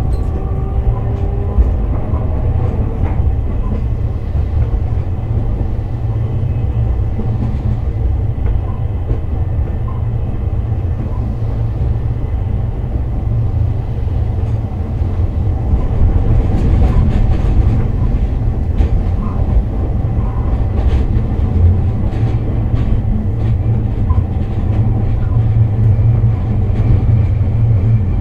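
Hakodate City Transportation Bureau type 8000 tram running along the street track, heard from inside the car: a steady low rumble of wheels on rails with scattered clicks. It grows somewhat louder about halfway through.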